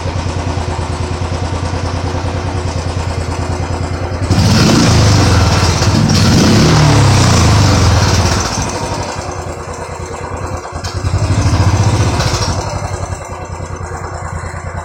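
An engine idling steadily, revved up twice and back to idle: a longer rev from about four seconds in and a shorter one later.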